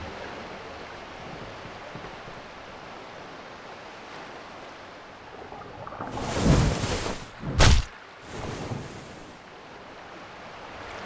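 Sea-wave sound effects, a steady wash of surf. About six seconds in comes a loud rushing splash as a shark bursts up from the water, then a single sharp, loud hit and a smaller splash after it.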